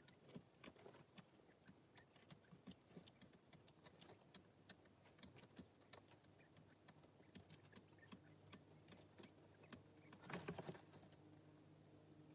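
Baby quail chicks pecking: faint, irregular light taps, several a second, with a brief louder rustle about ten seconds in.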